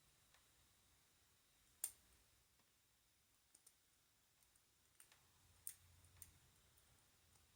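Faint, sparse metal clicks of a lock pick and tension wrench working inside a small, unlubricated Yale 25 mm padlock, with one sharper click about two seconds in.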